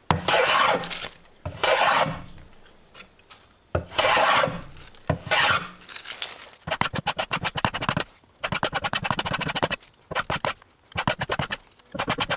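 Hand plane cutting a wooden support piece: several long, separate rasping strokes, then from about halfway a fast run of short, clicking scrapes as the plane is worked in quick strokes.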